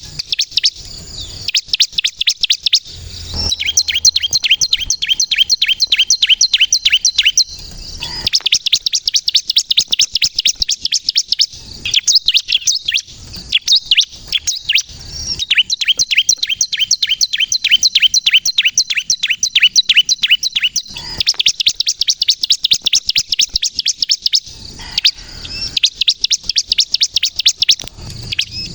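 Bar-winged prinia (ciblek) singing hard in long runs of rapid, high, sharp chirps. Each run lasts several seconds, with short breaks between runs.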